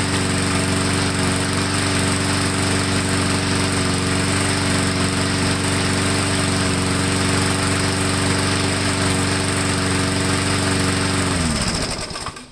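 Briggs & Stratton Classic single-cylinder lawnmower engine running steadily on its own after a cold start with three primes, without stalling. About eleven seconds in it is shut off, and its pitch falls as it winds down to a stop.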